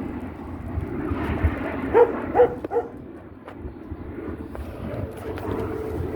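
A dog barks three quick times about two seconds in. Later a steady engine hum of a passing vehicle comes up and keeps going.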